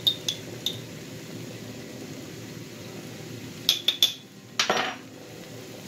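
A few light clinks of a spoon against a small glass spice jar with a short ring, then three more clinks about four seconds in followed by a brief scrape, over a steady low background noise.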